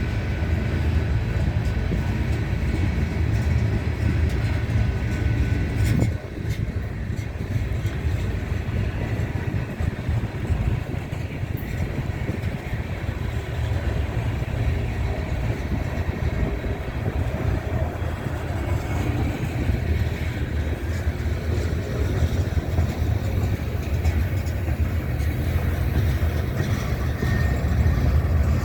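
Manifest freight train rolling past: a steady low rumble of steel wheels on the rails, dipping briefly about six seconds in.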